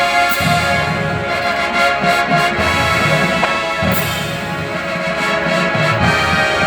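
High school marching band playing its field show: sustained brass with percussion, with sharp hits about half a second and about four seconds in.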